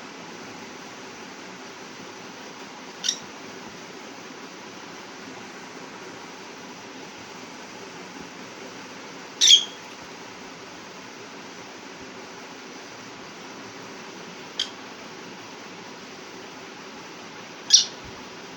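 Lovebirds giving four short, high chirps a few seconds apart over a steady hiss; the second and last chirps are the loudest.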